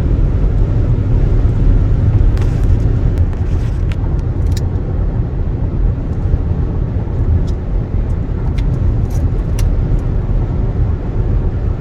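Steady low road and engine rumble inside the cabin of a car driving down a highway, with a few light clicks.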